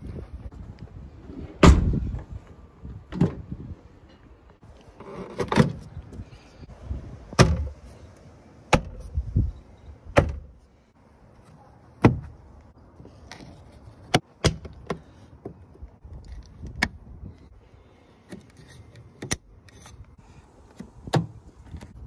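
A string of sharp clicks and knocks from car door parts being handled and refitted: the handle's metal linkage rods, plastic clips and the interior door panel. The loudest knock comes about two seconds in.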